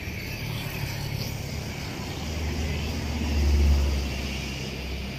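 Street traffic ambience with a motor vehicle passing close by: its low engine rumble grows from about two and a half seconds in, is loudest near three and a half seconds, then fades.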